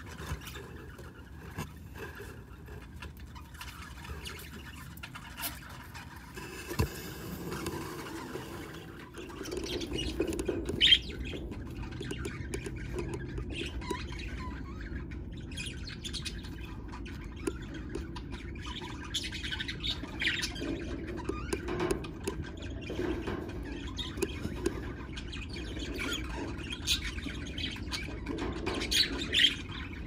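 Budgerigars chirping in short scattered calls, with a few louder chirps about eleven seconds in and near the end.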